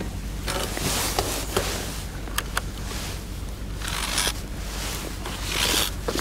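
Low wind rumble on the microphone, with several short rustles and scrapes and two longer hissing swells, one about two-thirds of the way in and one near the end.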